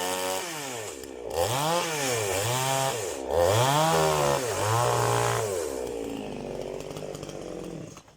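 Two-stroke chainsaw revving up and down about five times, as when cutting wood, then running more evenly before cutting off suddenly near the end.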